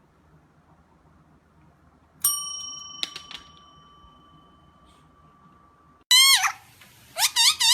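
A small bell struck once about two seconds in, ringing on with a slow fade. Near the end comes a loud, high, falling squeal, then a quick run of repeated squeaks, about three a second, each rising and falling in pitch.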